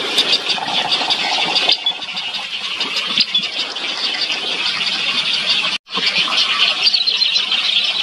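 A nesting colony of great egrets and their chicks calling: a dense, rapid, high chattering and squealing of many birds at once. The sound cuts out for an instant about six seconds in.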